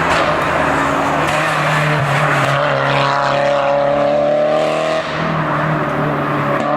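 Race car accelerating hard on a hillclimb course, its engine note rising through the revs, with a gear change about five seconds in before it climbs again.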